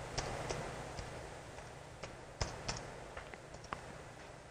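Scattered, faint keystrokes on a laptop keyboard: about half a dozen separate clicks with pauses between them, as a short web address is finished and entered.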